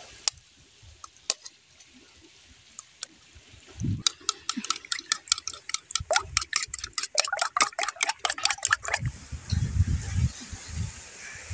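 Metal spoon beating eggs in a bowl: a fast run of clinks against the bowl, about six or seven a second for some five seconds, after a few single clicks. Low rumbling follows near the end.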